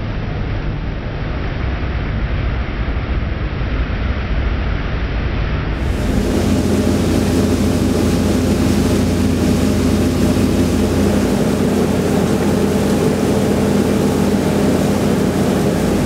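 New Holland TC5.90 combine harvester running under load while threshing barley: a steady mechanical drone of engine and threshing machinery as straw is thrown out of the rear. About six seconds in the sound becomes closer and brighter, with a steady hum of several tones.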